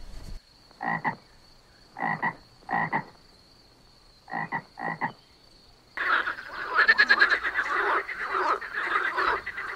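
Frog croaking: five short, separate croaks in the first half, then from about six seconds in a louder, dense run of rapid croaking that carries on.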